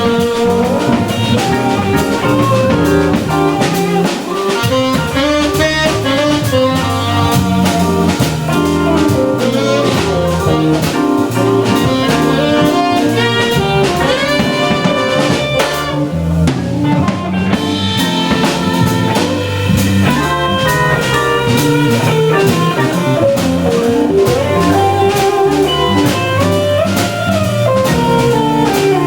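Small jazz-blues band playing live: tenor saxophone and organ lines over a drum kit and guitar, in a steady groove.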